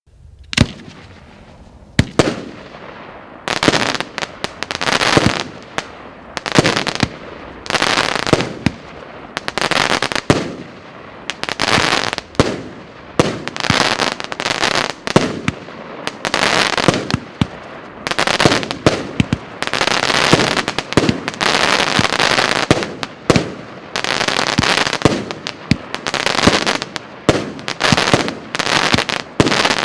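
A 100-shot firework battery of 25 mm tubes firing shot after shot, starting about two seconds in: sharp launch reports, roughly one a second, each followed by the crackle and bursts of the effects.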